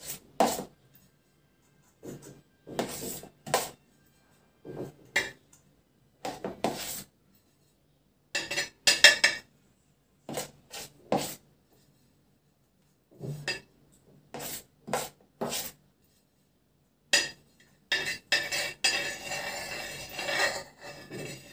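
Metal palette knife scraping whipped cream out of a plastic bowl and spreading it along the sides of a cake on a metal turntable, in short separate scrapes and clinks, with a longer run of steady scraping near the end.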